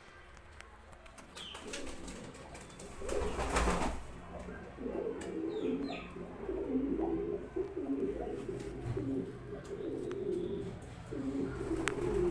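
Roman pigeon cooing in repeated low, broken phrases from about five seconds in, after a short noisy flurry around three seconds in.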